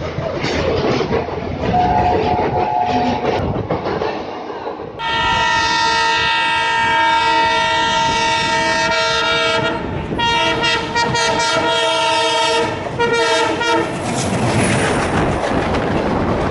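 Passing train rumbling with the knocks of wheels over rail joints. About five seconds in, a locomotive's multi-tone air horn sounds a loud chord: one long blast, then further blasts broken by short gaps.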